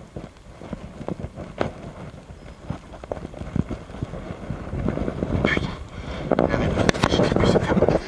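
Handling noise from a body-worn camera as the angler moves: clothing and gear rustling with scattered soft knocks, becoming louder and denser about six seconds in.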